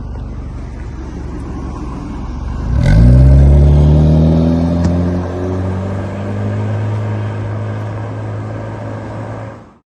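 Honda Civic FC 1.8's four-cylinder engine through an HKS rear muffler exhaust: a steady low rumble, then about three seconds in the engine note jumps and climbs as the car accelerates, easing to a steady drone. The sound cuts off suddenly near the end.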